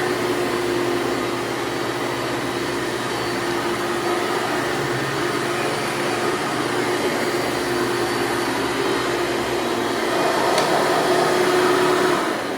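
Hoover Elite upright bagged vacuum cleaner running steadily with a whining motor. It gets a little louder for a couple of seconds near the end, then starts to wind down just before the end.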